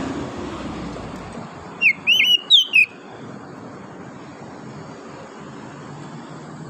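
Oriental magpie-robin singing: a short phrase of about five loud, curving whistled notes about two seconds in, over a steady background hiss.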